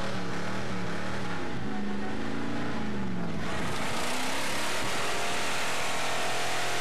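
Pickup truck engine revving up and down as the truck works through soft mud. A steady rushing hiss joins it from about three and a half seconds in.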